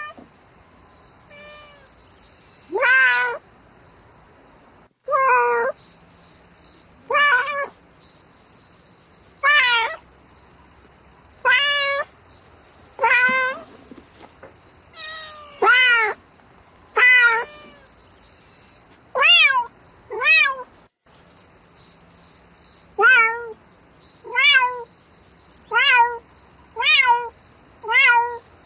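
Domestic cat meowing over and over, calling for a mate: some eighteen drawn-out meows, one every second or two, coming shorter and about once a second in the second half.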